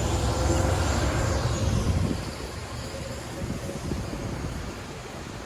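Low engine rumble of a passing vehicle, loud for about the first two seconds and then dropping away, leaving a steady background hum of traffic.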